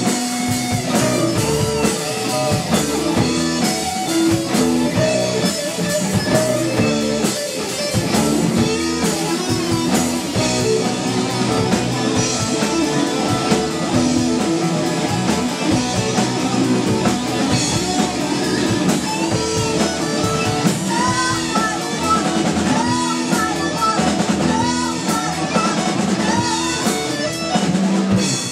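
Live rock band playing: a female lead singer over electric guitars and a drum kit, heard loud and continuous.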